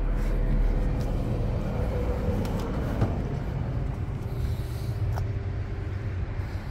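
Ponsse Wisent forwarder's diesel engine idling with a steady low hum, with a few light knocks about a second, three and five seconds in.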